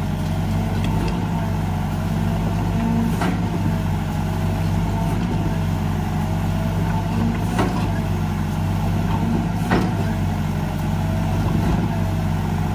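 Sumitomo SH120 A1 hydraulic excavator's diesel engine running steadily under load, with a wavering whine over it and sharp metallic clanks about 3, 7.5 and 10 seconds in, as the machine works to climb out of the pit it has sunk into.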